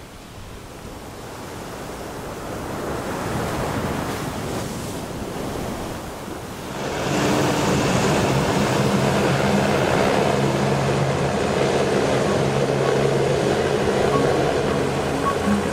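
Passenger hovercraft coming in from the sea and up onto a shingle beach: the drone of its engines and twin ducted propellers grows over the first few seconds, then jumps to a loud, steady drone about seven seconds in as it comes ashore. The wash of waves and wind runs underneath.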